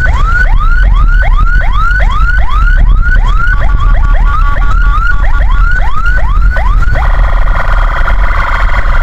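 Ambulance electronic siren on a rapid yelp, rising whoops at about two and a half a second, with a pulsing two-note tone laid over it for a couple of seconds midway. About seven seconds in it switches to a harsh, steady many-toned blare, over a constant low rumble of vehicle engine and road noise.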